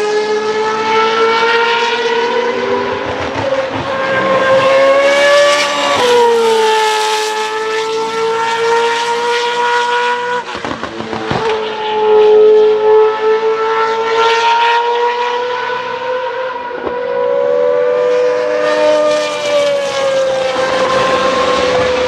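A formula racing car's naturally aspirated V8 running at high revs on track. The note climbs and falls through gear changes, with a sharp drop about six seconds in and a brief break near the middle.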